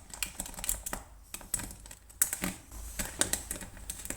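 Metal snake rake scraping and clicking inside a luggage TSA lock while held under a tension wrench: a run of small, irregular metallic clicks as the lock is picked.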